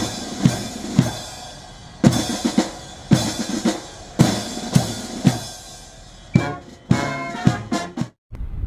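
Intro music built on a heavy drum beat, about two hits a second with crash-like accents, ending in a quick run of short pitched stabs that stops abruptly near the end.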